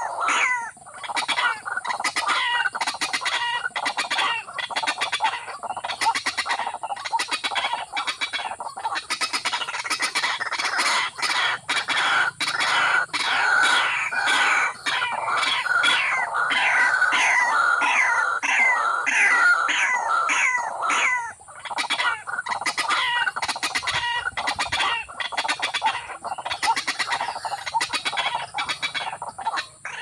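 Watercock calls: a fast, continuous run of clucking notes with a short lull about two-thirds of the way through, over a steady high hiss.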